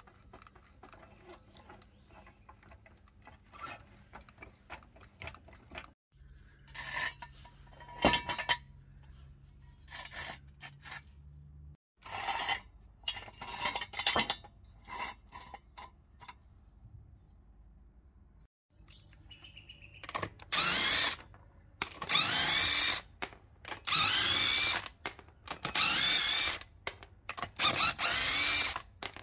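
Cordless impact wrench hammering the wheel nuts off an alloy wheel in five loud bursts of about a second each, one per nut, through the last third. Before that, quieter clanks and knocks of a floor jack and jack stand being set under the car.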